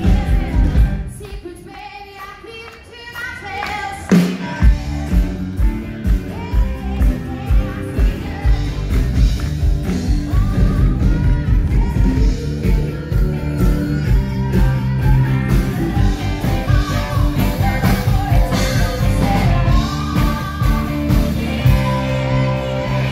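Live rock and roll band playing: a woman singing over acoustic and electric guitars and drums. The music drops back about a second in, then the full band comes in again with a steady beat around four seconds in.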